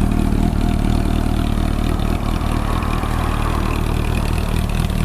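Honda CB400SF's inline-four engine idling steadily through a WR'S slip-on silencer, a loud, even exhaust note.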